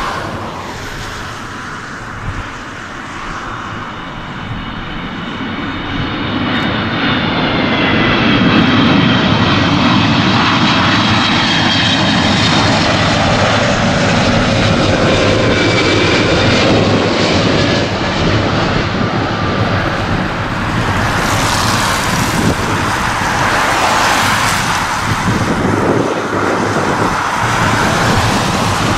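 Boeing 777 jet airliner on final approach flying past. The engine roar builds over the first several seconds and then holds, with a high whine that slides slowly down in pitch as it goes by.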